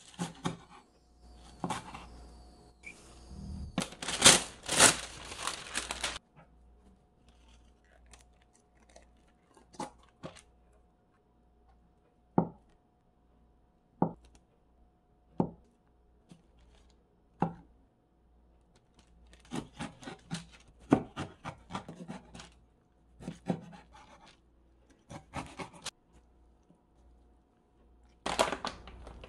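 Food-prep sounds with a cleaver: chopping garlic chives on a wooden cutting board, with a louder stretch of scraping and rustling a few seconds in. Later, single sharp knife strokes slice through a block of Spam onto the board, four of them a second and a half to two seconds apart, followed by more clusters of cutting and handling noise.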